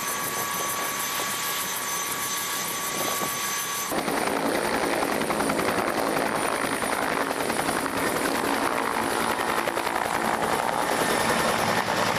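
Bell UH-1N twin-turboshaft helicopter running on the ground with its two-bladed main rotor turning: a dense rotor noise with fine rapid beating and a steady turbine whine. About four seconds in the sound shifts and gets louder.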